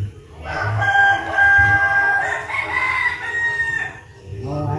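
A rooster crowing once: one long call of about three seconds that holds steady, rises in pitch near its end and then falls away.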